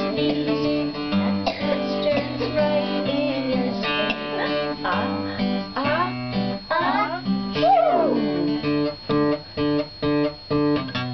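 Acoustic guitar strumming chords. In the last couple of seconds the strums come short and separate, about two a second, with the strings damped between them.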